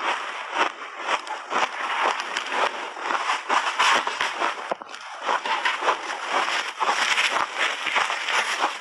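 Close-miked chewing of a mouthful of refrozen pink berry shaved ice: rapid, irregular crunching of ice crystals between the teeth, keeping on through the whole stretch.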